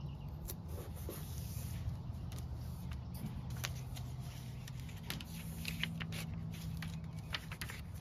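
Paper rustling and crinkling in short, scattered clicks and crackles as a paper template is handled and its middle piece torn out, over a steady low hum.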